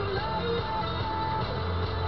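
Rock music with strummed guitar over a steady bass line, playing on a car radio inside the cabin.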